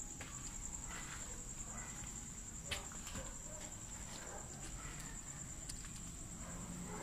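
Crickets chirring in a steady high trill, with soft footsteps and a single sharper click about three seconds in.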